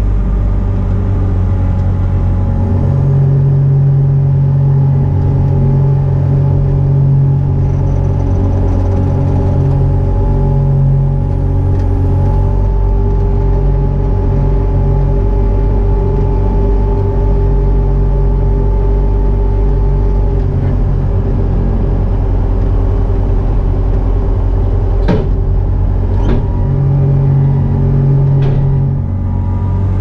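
Bobcat T650 compact track loader's diesel engine running steadily, heard from inside the operator's cab. Two sharp knocks come near the end.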